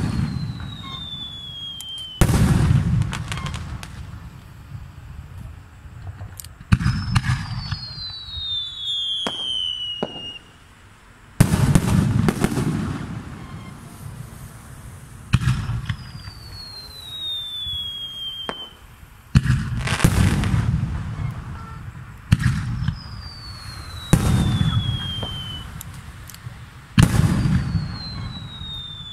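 Aerial firework shells bursting overhead about seven times, roughly every four seconds. Each heavy bang is followed by a low rolling rumble, with smaller crackles between. Several thin whistles fall in pitch between the bursts.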